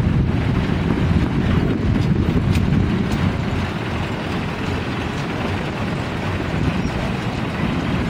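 Steady rush of whitewater rapids, with wind buffeting the microphone.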